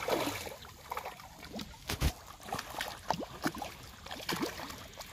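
Pond water lapping and splashing at the bank: a run of small, irregular splashes and clicks, with one sharper splash about two seconds in.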